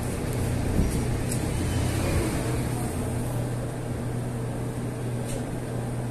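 Steady low mechanical hum under a constant background rush, with a few faint light clicks.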